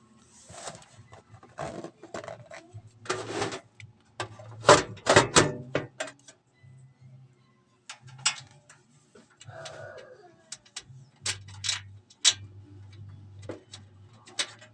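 Hands handling computer parts: a run of sharp clicks and knocks with short rustles, thickest and loudest around five seconds in.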